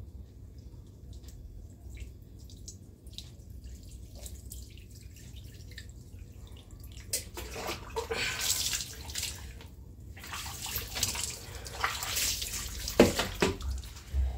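Water running and splashing in two spells through the second half, after several seconds of faint clicks over a low hum.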